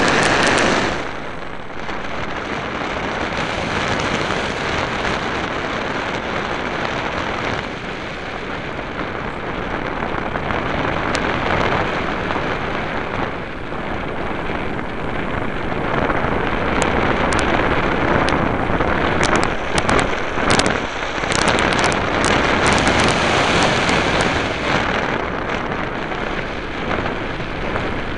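Steady rushing wind noise on a keyring camera's small microphone as it is carried through the air, with scattered crackles in the second half.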